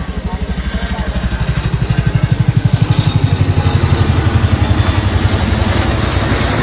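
Boeing CH-47 Chinook tandem-rotor helicopter flying low overhead: a rapid, deep throb of its rotor blades that grows louder over the first couple of seconds and then stays loud.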